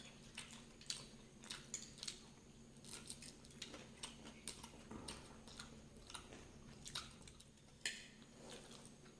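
Faint chewing of spicy food with chillies, made up of small irregular clicks and wet mouth sounds, with one sharper click near the end, over a faint steady hum.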